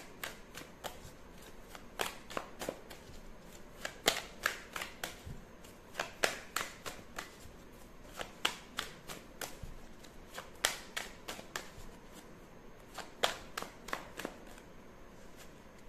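A tarot deck being shuffled by hand: runs of quick, crisp card snaps that come in clusters about every two seconds and stop shortly before the end.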